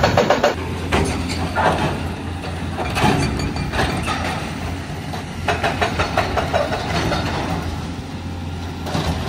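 Heavy diesel engine of demolition machinery running steadily, with irregular knocks and crashes of demolition work.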